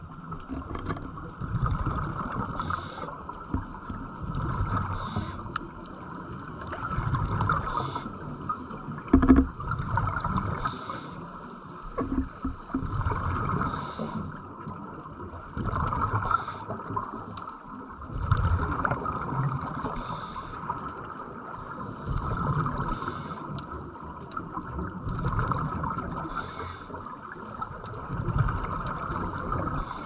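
Scuba divers' regulator breathing and exhaled bubbles gurgling, heard underwater, swelling and fading every few seconds.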